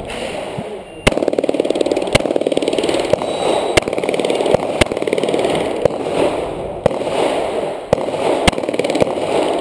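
Glock 21 pistol firing .45 ACP, about ten sharp shots spaced roughly a second apart.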